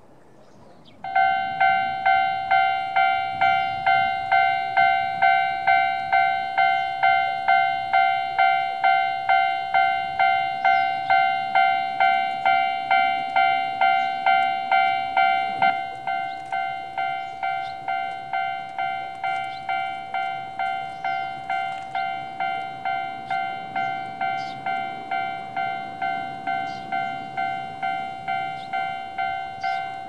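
Japanese railway level-crossing alarm, electronic warning chime, starting about a second in and repeating evenly at about two strokes a second. It gets noticeably quieter about halfway through, once the barrier arms are down, and keeps ringing.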